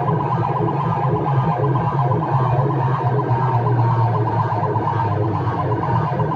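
Loud music blasting from large DJ speaker boxes in a sound-system competition, with a strong, steady bass.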